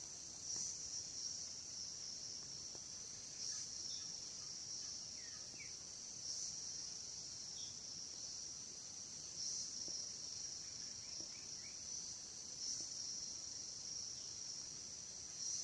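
Steady high-pitched chorus of forest insects, swelling briefly about every three seconds, with a few faint short chirps now and then.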